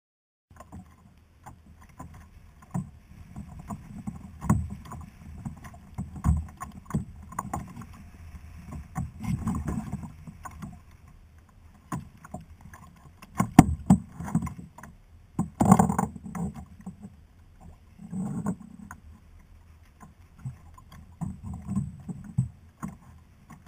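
Kayak on the sea: water sloshing and lapping against the hull, with irregular knocks and clatters, two of them louder a little past the middle.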